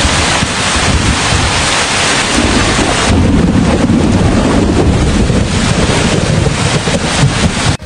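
Thunderstorm sound effect: rain hissing steadily, with a low rumble of thunder building from about three seconds in. It stops suddenly near the end.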